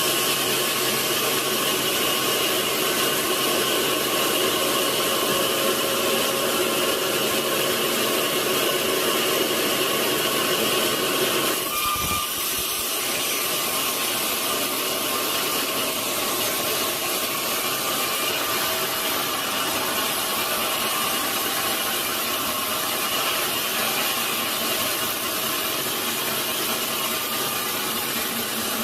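Sawmill saw running through a large log, a steady loud whine of blade and machinery. A brief low thump about twelve seconds in, after which it runs a little quieter.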